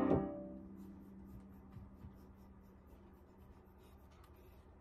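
A piano chord dying away at the start, leaving one low note sounding faintly. Under it come faint rustling and small scattered clicks.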